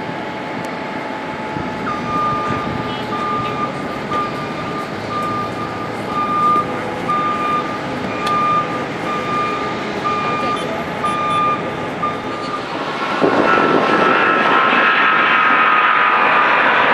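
Steady jet engine noise from taxiing airliners, with a vehicle's reversing alarm beeping about once a second. About 13 seconds in this gives way suddenly to the much louder, rushing noise of a Boeing 777-200's twin jet engines at takeoff thrust on the takeoff roll.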